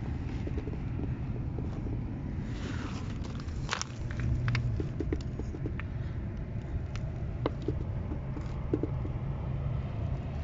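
Steady low rumble with scattered crunches and clicks of footsteps on loose, stony ground.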